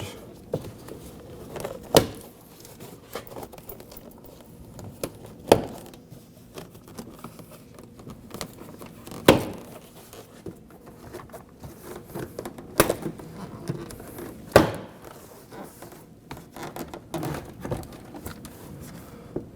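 Plastic pop clips of a Subaru Crosstrek's interior door panel snapping loose one at a time as the panel is pried off with a trim tool, about five sharp snaps with light plastic clicking and rubbing between them.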